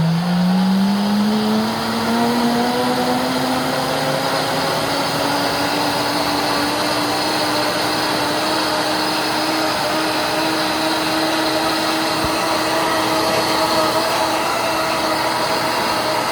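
Princess House high-power blender motor running on its automatic hot soup program, blending milk and oats into atole. Its pitch rises over the first four seconds or so as it speeds up, then it holds a steady whine.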